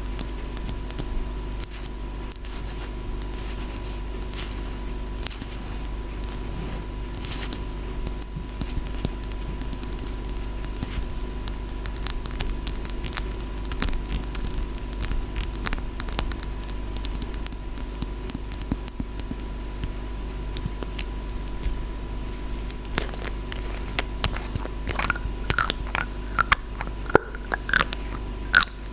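ASMR scratching on a close-miked object, a dense run of fine scratches, with sharper separate taps coming in from about two-thirds of the way through. A faint steady hum runs underneath.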